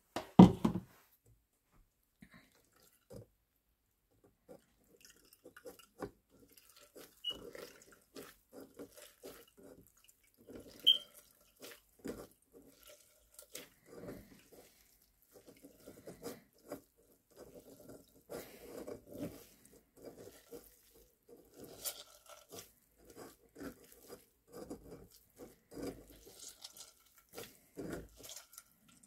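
Soaked bread being squeezed by hand in a metal mesh strainer over a stainless-steel sink, with small uneven squelches and drips of water as it drains. One short louder sound right at the start.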